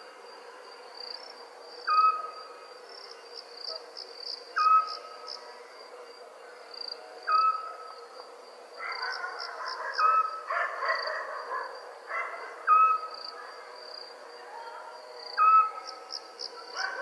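Night ambience: a steady high insect trill broken by pulsed chirps, under a short whistled call from a night animal. The call drops slightly in pitch and holds briefly, repeating about every two and a half seconds. A rougher, noisier rustle swells for a couple of seconds near the middle.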